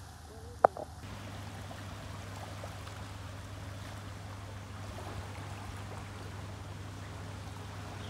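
A sharp click, then from about a second in a steady outdoor hiss over a low, steady hum.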